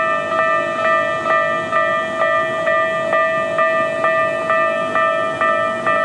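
Japanese railway level-crossing warning bell ringing steadily, about two strikes a second, while the crossing is closed to traffic.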